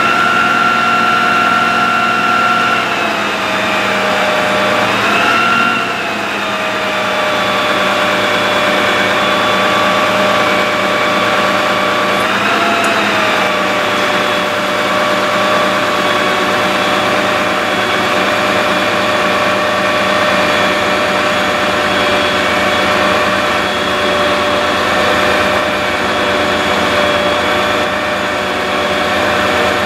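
Bucket truck's engine running with its PTO-driven hydraulic pump whining steadily as the aerial boom is moved. The whine rises and falls in pitch briefly, about five and about twelve seconds in.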